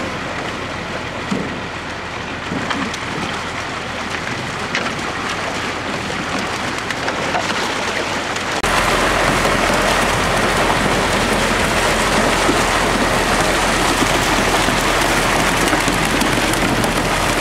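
Water gushing out of a fish-stocking truck's tank and down a metal slide chute into a lake, carrying live catfish and splashing. About nine seconds in it turns suddenly louder and fuller.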